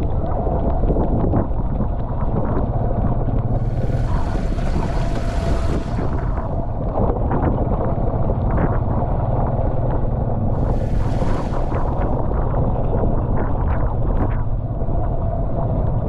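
Motorcycle engine of a tricycle running steadily under way, with wind buffeting the microphone. Two bursts of hiss rise over it, about four seconds in and again about ten seconds in.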